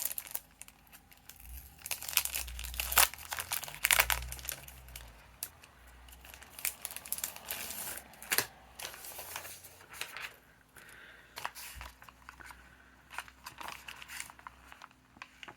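Scrapbooking papers and supplies being rummaged through and handled: irregular crinkling and rustling with sharp clicks and a few soft bumps, busiest in the first few seconds and thinner after.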